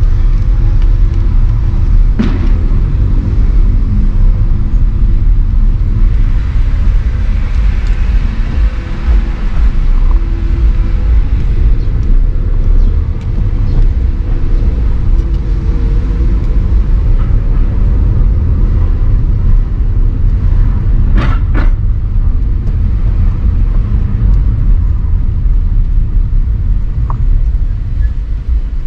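Car on the move: a loud, steady low rumble of engine and road noise, with a sharp knock about two seconds in and a quick double knock near the end.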